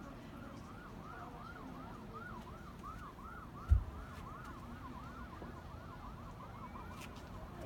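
Emergency vehicle siren in a fast up-and-down yelp, about three sweeps a second, fading away near the end. A single low thump sounds about halfway through.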